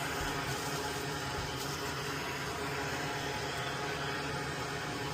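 Steady whirring hiss of a running fan or blower with a faint hum, unchanging throughout.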